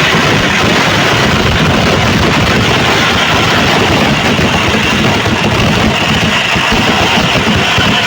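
Dense barrage of firecrackers going off in rapid succession, the individual bangs merging into a continuous loud rumble.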